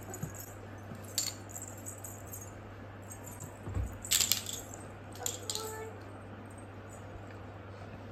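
Light clinks and rattles of small hard objects, once about a second in and again in a short cluster around four seconds in, over a low steady hum. A brief soft vocal sound from a toddler comes near the middle.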